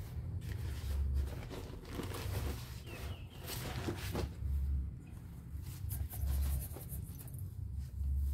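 Paper cement sack rustling and crinkling as it is lifted and tipped out onto sand in a wheelbarrow. Low rumbles swell and fade every second or two underneath.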